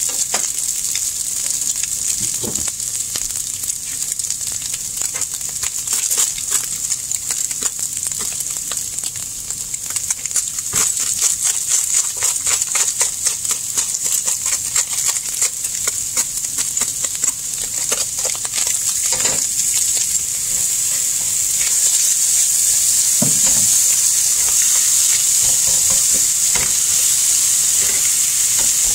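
Scrambled eggs and shredded chicken sizzling in a frying pan, with the scraping and tapping of a wooden spatula stirring them. The sizzle grows louder and steadier about two-thirds of the way through.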